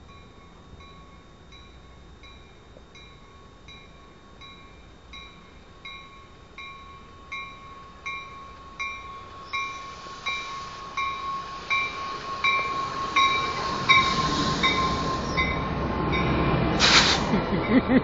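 A Metra Electric commuter train approaching and pulling into the station: a bell rings in even strokes about one and a half times a second, growing louder as the train nears, over a steady whine. The rumble of wheels on rails builds in the second half, with a short burst of hiss about a second before the end.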